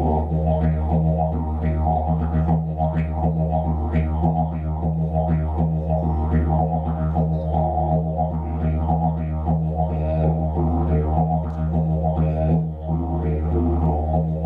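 Didgeridoo played live: a deep, unbroken drone with brighter rhythmic pulses repeating over it.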